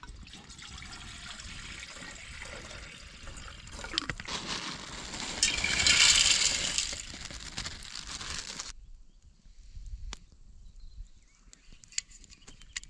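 Water poured from a plastic bottle into a steel camping pot, swelling to its loudest as dry pasta is tipped in from a plastic bag. This stops suddenly about nine seconds in, leaving only a few small clicks as a tin can's ring pull is handled.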